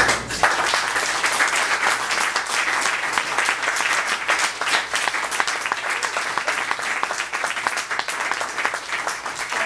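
Audience applauding, the clapping starting all at once and holding steady and dense.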